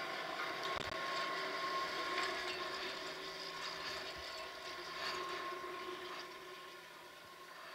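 Chairlift terminal machinery running with a steady, multi-tone hum, with a thump about a second in as the chair is boarded. The hum fades near the end as the chair moves away from the terminal.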